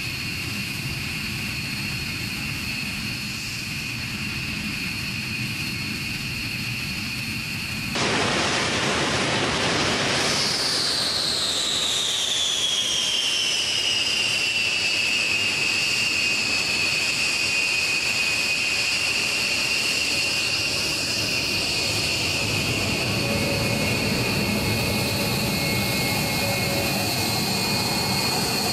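Four turbofan engines of a B-1B Lancer bomber running on the ground with a steady high whine. About eight seconds in the sound jumps louder, and a whine falls in pitch over several seconds before holding steady.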